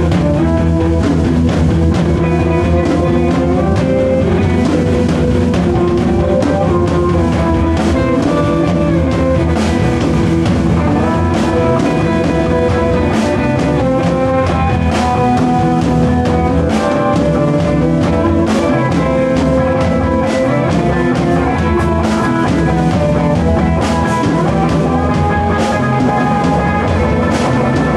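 A rock band playing live on drum kit and electric guitars, an instrumental passage with steady drumming under sustained guitar notes.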